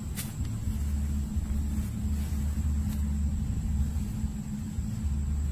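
Low, steady rumble with a little unevenness, and a few faint clicks over it.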